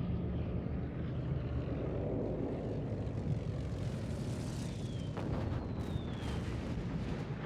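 Propeller aircraft engines droning steadily, with two falling whistles and a few sharp cracks in the second half.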